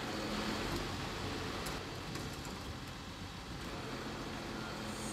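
Truck engine running steadily: a low, even hum under a wash of outdoor noise.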